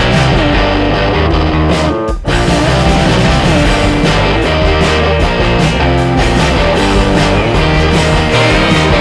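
Rock music with guitar playing throughout, with a brief break about two seconds in.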